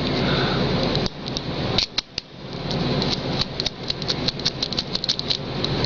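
Keys and small metal lock parts being handled, with many quick, irregular clicks and taps from about two seconds in.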